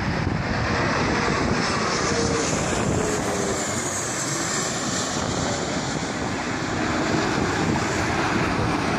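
Jet airliner's engines running as it passes low on its landing approach: a steady loud rush of noise with a faint high whine that falls slowly in pitch.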